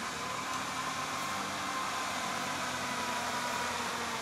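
Quad (ATV) engine running steadily under a loud, even rushing noise, with no breaks or revs.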